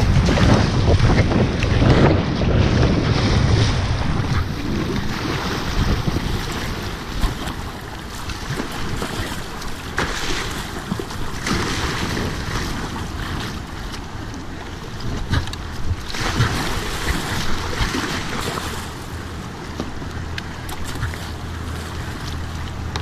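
Rushing whitewater and kayak paddle strokes splashing, with water and wind buffeting the helmet-camera microphone. It is loudest for the first few seconds, then settles, with one sharp knock about seven seconds in.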